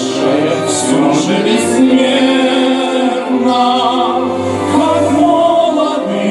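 Male vocal trio singing in harmony into microphones, holding long notes over instrumental accompaniment.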